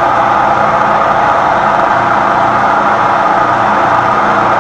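Lagun knee mill running steadily, its end mill held in a Cat 40 tool holder and cutting a metal block clamped in the vise. This is a test cut to check that the Cat 40 tooling works in the mill.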